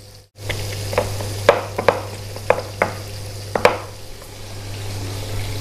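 Stove-top cooking: a steady sizzle of food frying, with a cooking utensil knocking sharply against cookware about seven times in the first four seconds.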